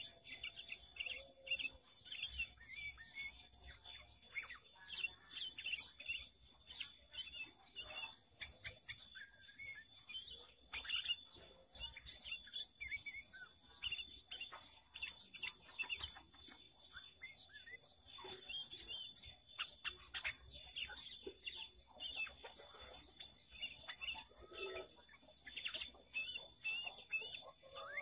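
Sooty-headed bulbul singing continuously: a rapid, varied string of short, sharp chirps and whistled notes. A faint steady high tone runs underneath.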